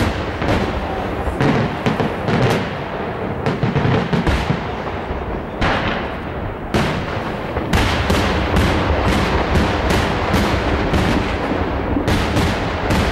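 Aerial fireworks barrage: shells bursting overhead in rapid cracks and bangs, several a second, growing denser and heavier from about eight seconds in.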